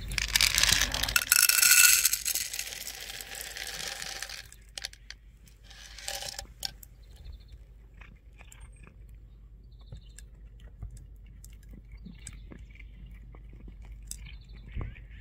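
Dry kibble poured rattling from a container into a bowl for about four seconds, then a cat crunching the kibble, with small scattered clicks and crunches.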